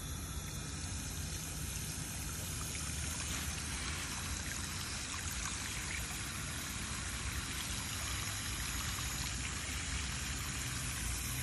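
Water from a garden hose spray nozzle pouring steadily into the soil of a hanging flower pot.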